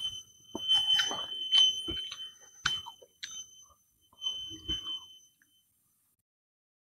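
Close-up eating sounds from a man eating rice and chicken with his hand: wet chewing, lip smacks and sharp mouth clicks for about five seconds, then the sound drops away. A steady high-pitched tone runs along with them, on and off.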